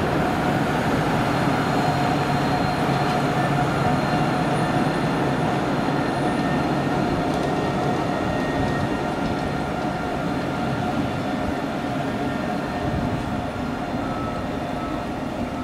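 Alstom Citadis 402 tram running along its track: a continuous rumble with steady whining tones over it, growing gradually quieter through the second half.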